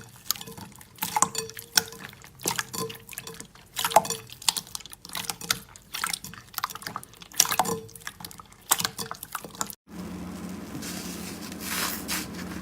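Slime being squeezed and poked, making irregular wet, sticky clicks and pops. About ten seconds in it cuts off abruptly and gives way to a steadier hiss over a low hum, with a few softer crackles.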